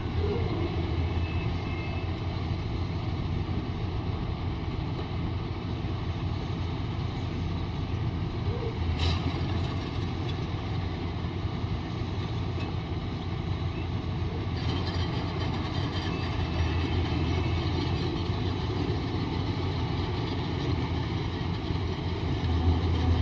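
Yanmar AW70GV combine harvester's diesel engine running steadily, with a single sharp click about nine seconds in.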